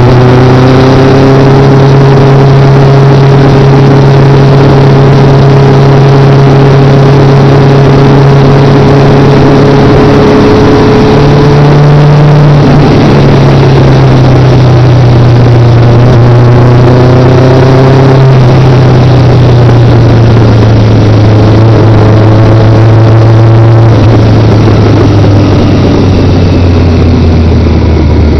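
Motorcycle engine running while riding, heard from the bike itself over wind and road noise. Its pitch holds steady for long stretches, shifts a few times along the way, and falls slowly near the end as the bike eases off.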